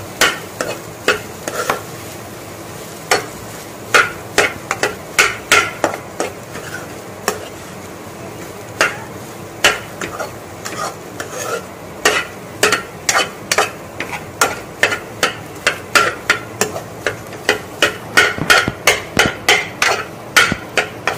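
Metal spatula scraping and knocking against a nonstick kadai as egg fried rice is stirred and tossed, in quick irregular strokes about two a second, over a steady sizzle from the frying rice.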